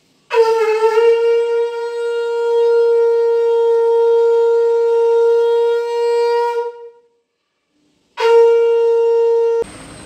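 Conch shell (shankh) blown in two blasts at evening sandhya prayer: one long, steady, horn-like note lasting about six and a half seconds, then after a short gap a second blast that cuts off abruptly near the end.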